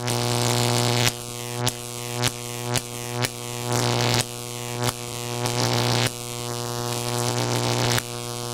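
Electronic intro music: a buzzing synthesizer drone with sharp pulses roughly twice a second, cutting off suddenly at the end.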